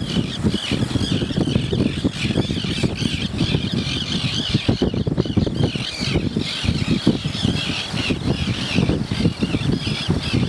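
A tern colony calling, with many high calls overlapping continuously over a low rumble.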